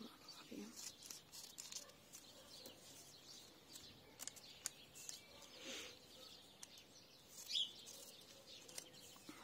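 Faint rustling and snipping of a small paper seed packet being cut open with scissors and handled, with birds chirping in the background.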